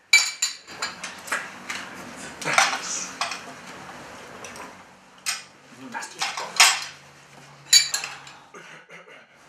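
Metal spoons clinking and scraping against porcelain soup bowls and cups as two people eat soup quickly, a string of irregular sharp clinks.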